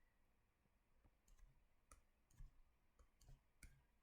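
Near silence, with about five faint, short clicks scattered through it from drawing a diagram.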